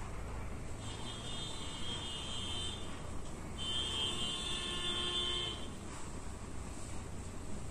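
Two long, high-pitched buzzer tones, each about two seconds, with a pause of about a second between them, over a low steady hum.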